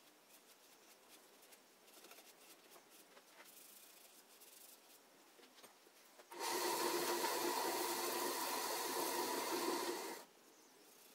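Light rubbing and handling noises on a small wooden turning for about six seconds. Then a wood lathe runs loudly with a steady whine for about four seconds and cuts off abruptly.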